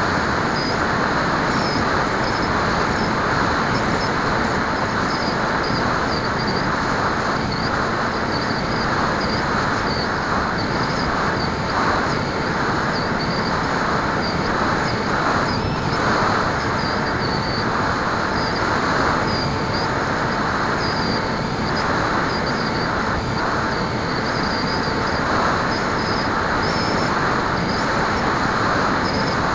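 Bixler foam RC plane in flight, heard through its onboard camera: the electric pusher motor and propeller run steadily under a rush of wind, with a thin steady whine.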